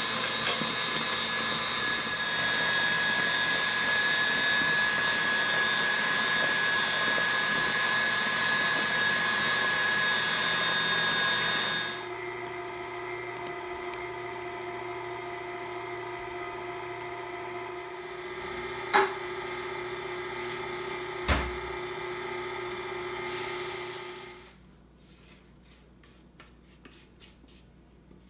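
KitchenAid Classic stand mixer motor running steadily with a whine as its beater mixes cookie batter. About twelve seconds in, it turns quieter with a lower hum. Two sharp knocks come in the second half, and the motor cuts off suddenly near the end, leaving only faint rubbing.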